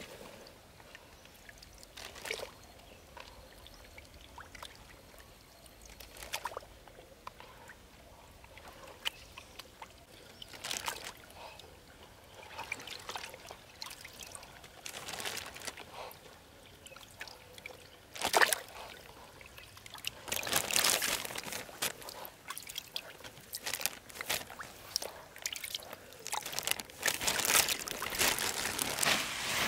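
Water splashing and trickling in irregular bursts. The sounds grow busier and louder over the last third, with one sharper, louder splash just before that.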